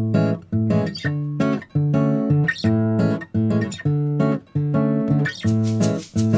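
Background music: acoustic guitar playing chords in a steady rhythm.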